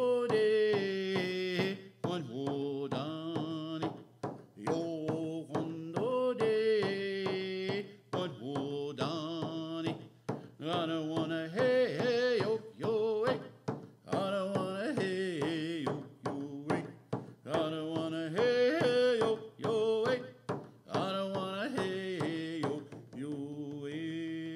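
A man singing a traditional Western Abenaki greeting song in vocable phrases with breaths between them. He accompanies himself with a steady, even beat on a hand-held hide frame drum struck with a beater.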